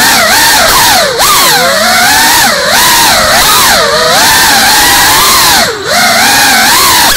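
GEPRC Cinelog 35 ducted cinewhoop FPV drone's motors and propellers whining, the pitch rising and falling continuously with the throttle. The whine drops briefly about a second in and again near six seconds.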